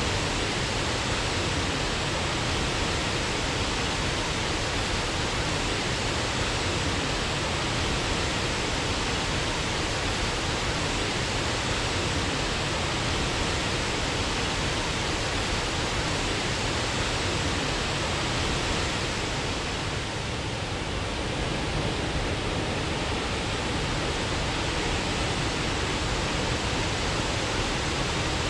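Waterfall rushing in a steady, unbroken roar of falling water, briefly a little softer about twenty seconds in.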